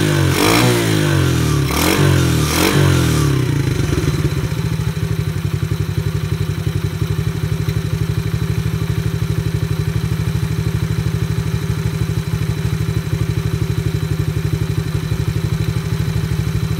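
Single-cylinder four-stroke engine of a small Chinese ATV blipped up and down a few times in the first three seconds, then settling into a steady, evenly pulsing idle while the carburetor's idle adjustment is set.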